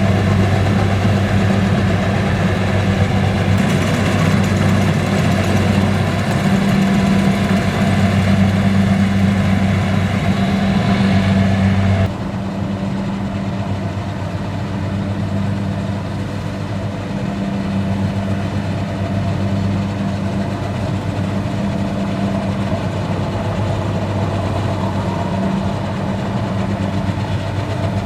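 Kubota DC-70 combine harvester running steadily with a deep engine drone. About twelve seconds in the sound drops suddenly to a quieter, duller level and carries on.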